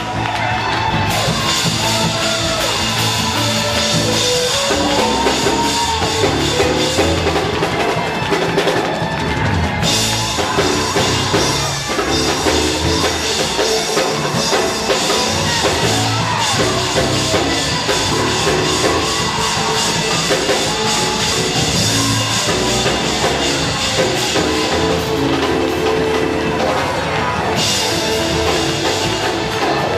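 Loud church praise music driven by a drum kit.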